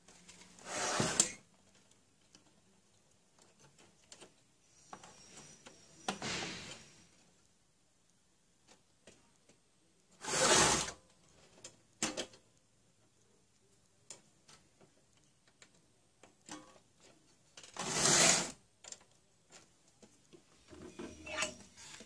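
Plastic parts of an HP LaserJet P1102 laser printer being handled and fitted back together by hand: four short scrapes of about a second each, with scattered clicks between them.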